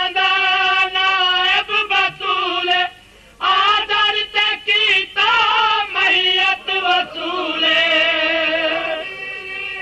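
A single high voice singing a Punjabi devotional kalam, a lament for Hasan, in long wavering notes, with a short breath pause about three seconds in.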